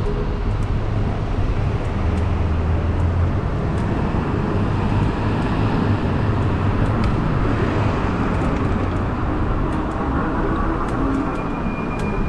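Steady rushing road noise from riding a modded fat-tire e-bike, with motor traffic going by.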